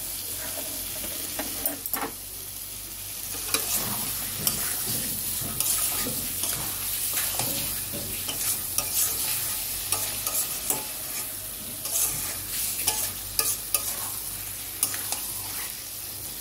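Fried potato and pointed gourd pieces sizzling in spice paste in a metal kadai, turned over and over with a spatula that scrapes and clicks against the pan in irregular strokes over a steady hiss. This is the vegetables being sautéed (kosha) in the masala.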